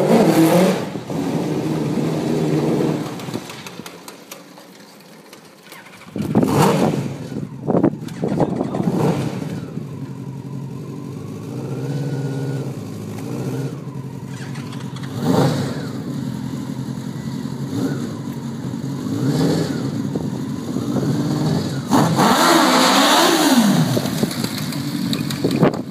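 Engine of a small tube-frame buggy revving in repeated short blips as it drives slowly, each rev rising and falling in pitch. The engine drops quieter a few seconds in and gives a longer rev near the end.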